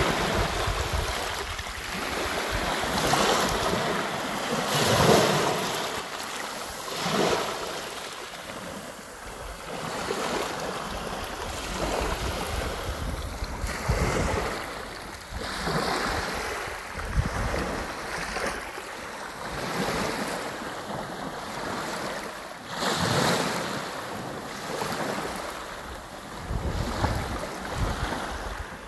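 Sea waves washing in and breaking, the surf swelling and falling back every couple of seconds, with wind rumbling on the microphone.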